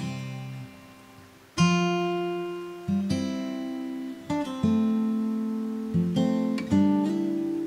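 Background music: slow acoustic guitar, with notes and small chords plucked about once a second and left to ring out. There is a brief quieter gap before a strong note about a second and a half in.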